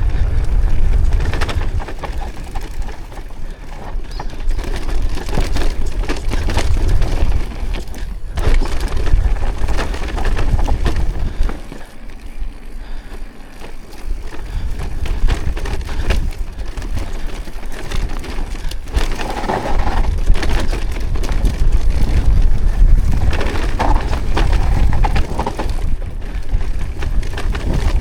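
Bicycle being ridden over rough ground, with a heavy rumble of wind on the microphone that eases briefly about halfway through, and frequent clatters and crunches from the tyres and bike.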